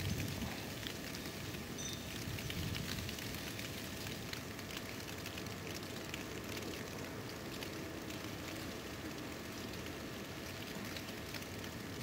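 Steady fine patter of wind-driven snow, with many small ticks over a soft hiss.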